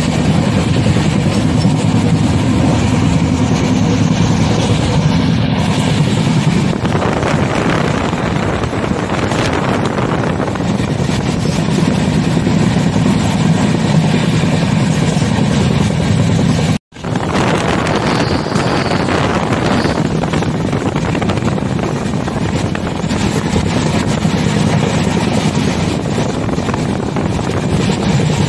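Indian Railways passenger train running: the steady rumble of the coach and its wheels on the track. The sound cuts out for a split second about two-thirds of the way through.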